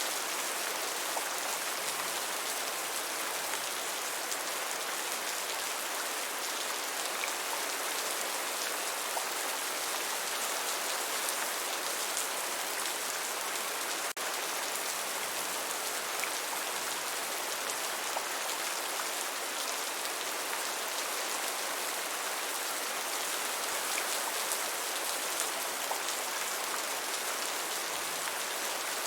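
Steady rain falling, an even hiss with fine scattered drop patter and no thunder.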